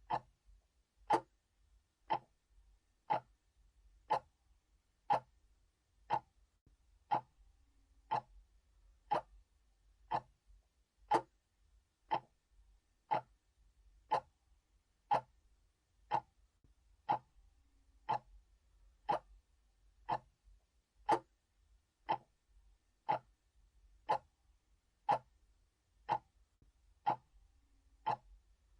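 Analog clock ticking steadily, one sharp tick about every second.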